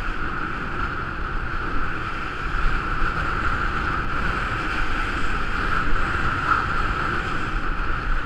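Skis sliding over packed, groomed snow, a steady hiss and scrape, mixed with wind rushing over the camera microphone.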